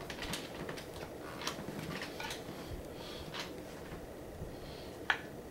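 Wooden balance bike parts being handled and fitted together: a series of light clicks and knocks, with one sharp click about five seconds in the loudest.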